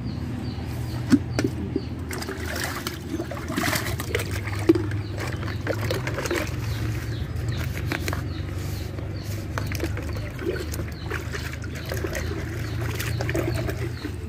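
Water sloshing and trickling in a bucket as poultry drinkers are handled, with chicks peeping throughout over a steady low hum.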